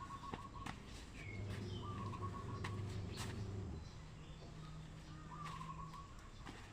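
Bird calls: a short call repeated a few times, with a low steady hum through the middle and scattered sharp clicks.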